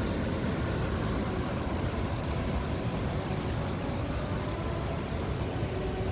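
Steady low rushing noise of indoor ventilation, even throughout with no distinct events.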